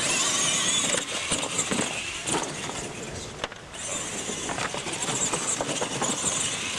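Radio-controlled monster trucks racing, their motors whining high and wavering in pitch as the throttle is worked. A single sharp knock about three and a half seconds in.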